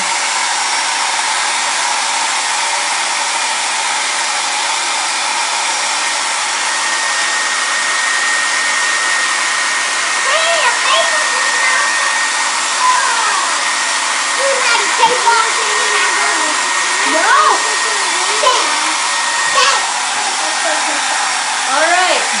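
Handheld hair dryer running steadily, blowing at close range onto a board of crayons to melt the wax. A thin high whine joins the rush of air for a stretch in the middle.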